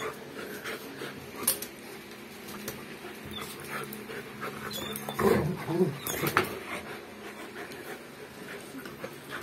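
A Rottweiler puppy and a Belgian Malinois play-fighting: dog breathing and scuffling, with a few sharp clicks and a louder, low, wavering dog sound about five seconds in.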